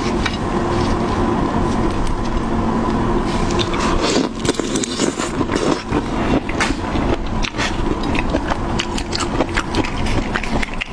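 Close-miked eating sounds: chewing and wet, sticky clicks and squelches from marinated raw red shrimp being handled and eaten, thicker from about four seconds in. A steady low hum sits underneath.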